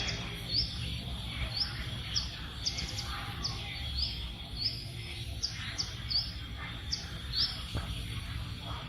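Small bird chirping, about a dozen short rising chirps roughly one a second, over a faint steady high whine and a low rumble.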